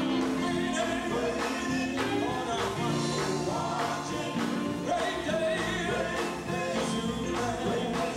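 Live gospel music: a male vocal group singing into microphones, backed by a band with electric guitar and drums keeping a steady beat.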